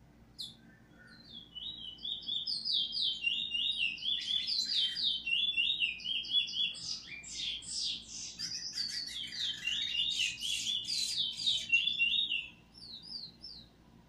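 Caged bullfinch (the Caribbean name for the chestnut-bellied seed finch) singing a long, fast warbling song of rapid repeated chirping notes and short trills, with a few buzzier passages. The song fades in over the first second or so and stops shortly before the end.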